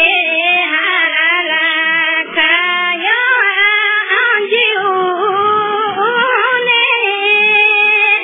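A high female voice singing one long, wavering, ornamented melody with few breaks for breath, holding notes near the end. The sound is thin and cut off in the highs.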